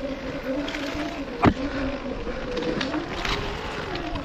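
Off-road motorcycle engine running at low, gently varying revs while descending a rough trail, with one sharp knock about a second and a half in, like the bike striking a rock, and a few lighter clicks later.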